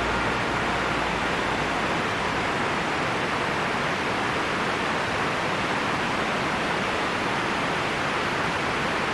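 Steady, even rushing of water, unbroken throughout.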